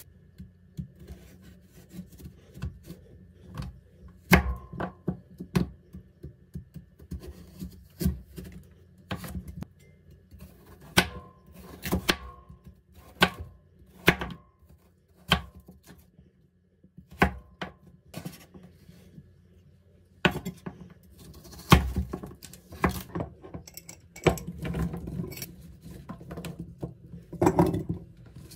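A cleaver chopping a peeled white radish into chunks on a wooden cutting board. The blade knocks sharply against the board at irregular intervals, roughly once a second, some strokes with a brief ring, with a busier stretch of handling near the end.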